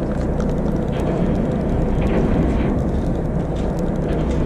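Steady low drone of a fishing boat's engine running, mixed with wind and sea noise, with faint scattered clicks from a conventional reel being cranked to bring in a hooked fish.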